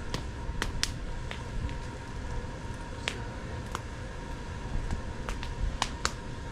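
Fire crackling, with irregular sharp pops over a low rumble.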